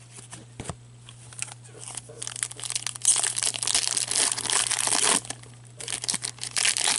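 Foil wrapper of a 2015-16 Upper Deck Series 2 hockey card pack crinkling and tearing as it is pulled open, after a few light clicks of cards being handled. The crackle is dense from about two seconds in to about five seconds, stops briefly, then comes back near the end.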